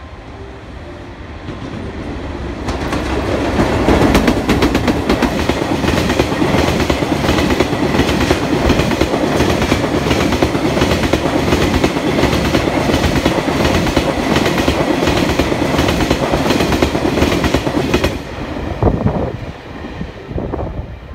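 Freight train of Taki tank wagons hauled by an EH500 electric locomotive passing at fairly high speed. Its wheels clatter over the rail joints in a fast, rhythmic clickety-clack. The sound swells over the first few seconds and runs loud and steady, then drops off suddenly near the end as the last wagon passes, leaving a few fading clatters.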